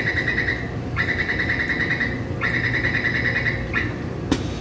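Metro door-closing warning beeper sounding rapid high beeps in three bursts of about a second each, signalling that the train and platform doors are closing. A single sharp knock comes near the end.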